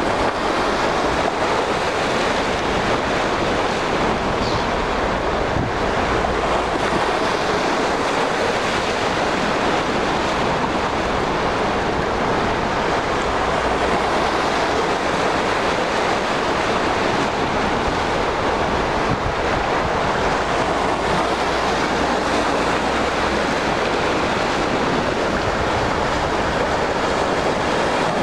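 Steady rushing of wind and small waves washing at the shoreline, with wind buffeting the microphone.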